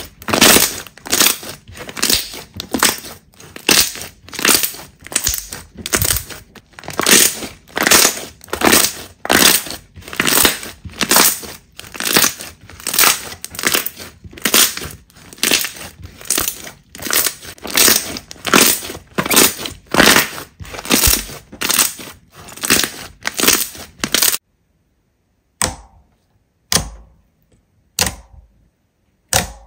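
Slime being squeezed and pressed by hand, crackling with each press at about two presses a second. About 24 seconds in it cuts to silence, broken by a few single presses.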